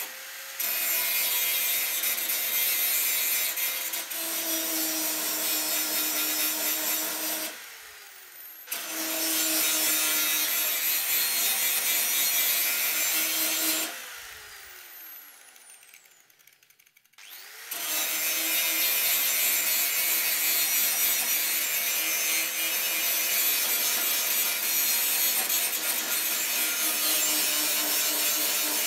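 Electric grinder running in long bursts, a steady motor whine under a hissing grinding noise. It cuts out twice, after about seven seconds and again about halfway through, winding down with a falling whine each time before starting up again.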